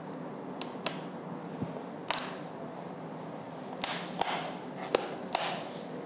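A handful of short, light clicks and taps of a screwdriver and hands on a laptop's base cover as its screws are driven back in, over a steady hiss.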